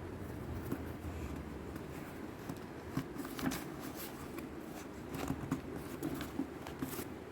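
Paper dust bag rustling, with a few soft clicks and knocks, as it is pressed into place inside a wet-and-dry vacuum cleaner's drum.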